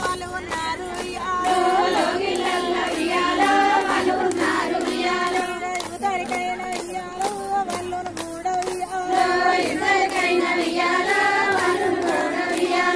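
A Bathukamma folk song sung by a high female voice, with steady rhythmic hand claps keeping the beat.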